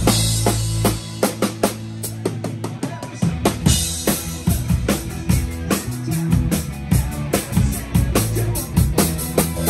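Live rock band playing, heard close to the stage: a drum kit drives a steady beat with kick and snare loudest, over bass and guitars.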